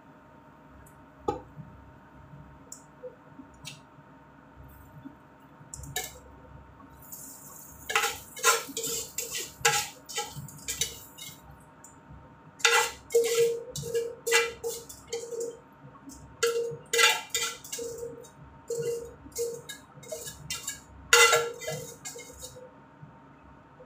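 Metal tongs scraping and clinking against a metal frying pan as cooked spaghetti is served out of it: a few single clicks at first, then from about a third of the way in, runs of quick scrapes and clinks with the pan ringing after each.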